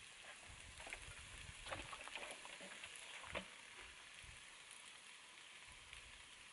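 Deer meat frying in a pan on a two-burner camp stove: a faint, steady sizzle with scattered crackles and a sharper click about three and a half seconds in.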